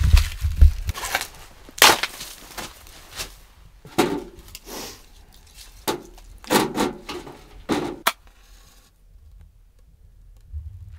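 Dry twigs snapping and cracking as they are broken by hand and stuffed into a small wood stove: a string of sharp, irregular snaps that stops about nine seconds in.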